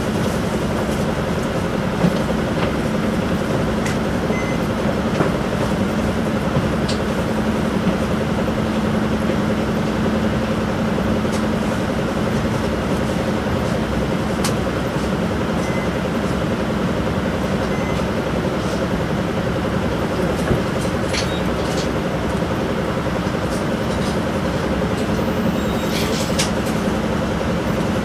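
Isuzu Erga city bus's 5.2-litre four-cylinder diesel idling steadily while the bus stands still, heard inside the cabin as an even low hum. A few light clicks sound now and then.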